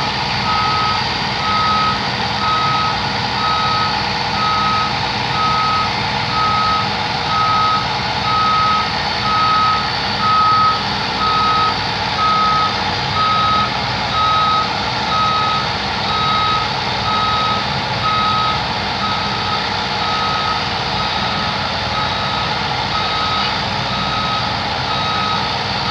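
Travel/back-up alarm beeping steadily about once a second over the running diesel engine and machinery of a DCM 30 crawler drilling rig as it tracks down off a lowboy trailer.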